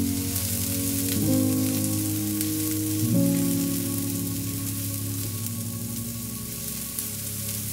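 Chopped onion sizzling in hot oil in a frying pan, stirred with a spatula that gives faint clicks against the pan. Soft background music with sustained chords plays underneath, changing about a second in and again about three seconds in.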